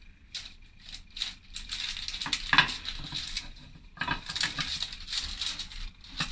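Parchment paper rustling and crinkling as an upside-down nonstick cake pan is handled and shifted on it to release the cake, with a sharp knock about two and a half seconds in.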